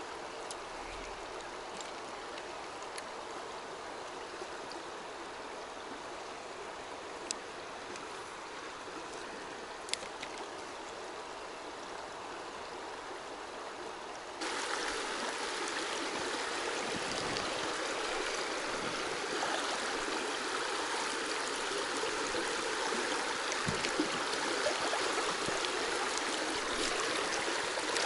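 Shallow river running over stones through a riffle: a steady rushing of water that becomes louder and fuller about halfway through.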